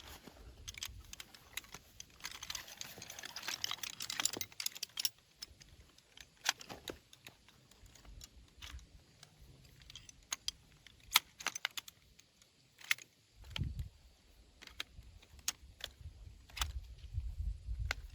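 Scattered sharp clicks and light rattling of small hard objects being handled, with a dense rustle a couple of seconds in. A low rumble comes in near the end.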